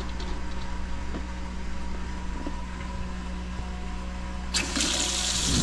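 A steady low hum, then about four and a half seconds in a galley faucet is turned on and water runs from its new aerator into a stainless steel sink.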